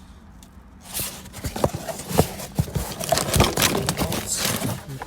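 Rustling with a rapid run of clicks and knocks as new belt-drive parts are handled, starting about a second in.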